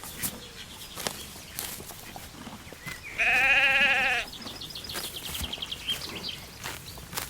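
A lamb bleating once, a single wavering call about a second long, about three seconds in, over scattered faint clicks and rustles.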